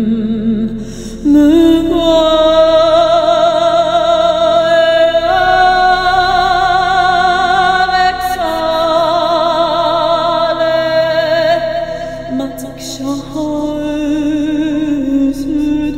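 Meditative music with a wordless singing voice holding long, wavering notes, stepping to a new pitch every few seconds.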